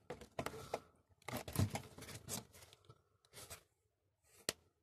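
Rubber dust cover being pulled off the back of a 1999–2005 Toyota Yaris headlamp, heard as several noisy bursts of rubber working against the plastic housing, with a sharp click near the end.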